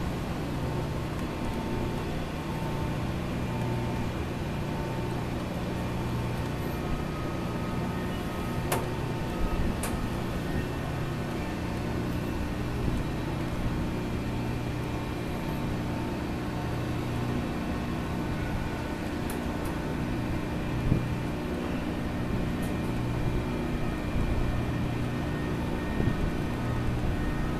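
The moored high-speed catamaran ferry Ocean Arrow's machinery runs at the berth: a steady low hum with several steady tones, and a couple of faint clicks about nine and ten seconds in.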